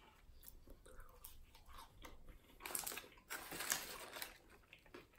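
Faint chewing of french fries, with soft crinkling of a paper fry bag. The rustles are loudest about three to four seconds in.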